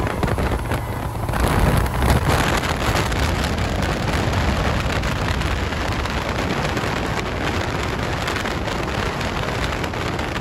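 Heavy rush of wind noise and road roar from a car travelling at freeway speed, building up about a second and a half in and then holding steady, with engine sound buried underneath.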